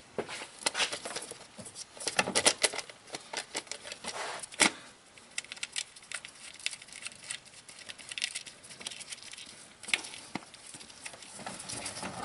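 Gloved hands handling a distributor cap and its spark plug wires: irregular small clicks, taps and rubbing of plastic and rubber, with one sharper click about four and a half seconds in.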